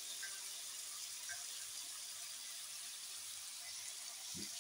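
Boneless chicken, chopped onion and crushed garlic sizzling in oil in a karahi, a quiet, steady hiss with a few faint crackles.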